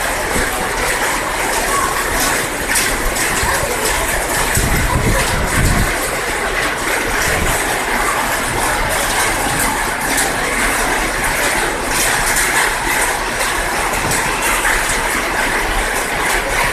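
Steady rain falling, a dense even hiss dotted with the small ticks of drops striking. A brief low rumble about five seconds in.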